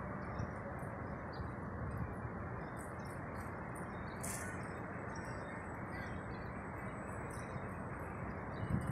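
Steady ambient noise of a large airport terminal hall, with faint scattered high chirps and a brief high hiss about four seconds in.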